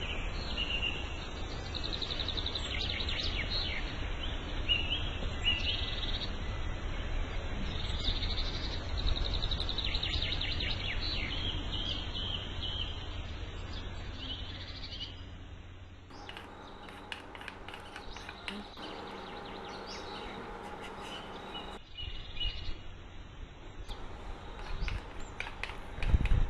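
Small birds chirping over a steady low rumble. About sixteen seconds in the background changes abruptly to a quieter one with scattered clicks and a few more chirps.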